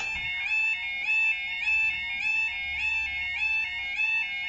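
Railway level crossing warning alarm sounding: a loud, warbling, stepped electronic tone that repeats about twice a second. It signals that a train is approaching and the barriers are about to lower.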